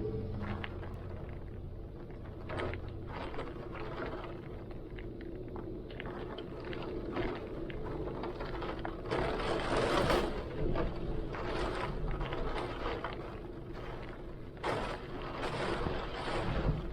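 Heavy wind and rain with a steady low rumble, and gusts surging louder about nine seconds in and again near the end.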